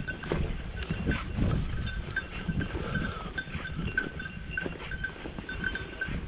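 A small bell on a working hunting dog's collar, clinking in short irregular strikes several times a second as the dog moves, over the rustle and steps of someone walking through dry bracken and grass.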